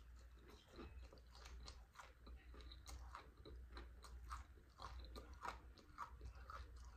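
Faint crunching and chewing of a fried catfish fillet with a cornmeal, flour and cornstarch crust: a bite at the start, then many small irregular crisp crackles as it is chewed.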